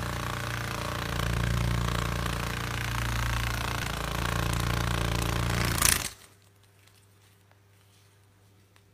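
Hercules beetle's wings buzzing in a low, loud drone that cuts off abruptly about six seconds in, with a brief louder burst just before it stops. Near silence follows.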